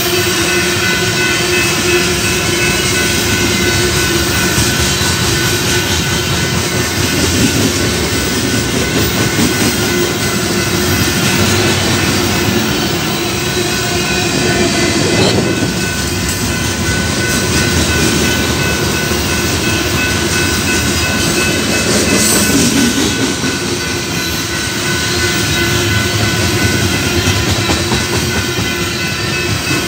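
Freight train of tank cars rolling past close by: loud, steady wheel-on-rail running noise.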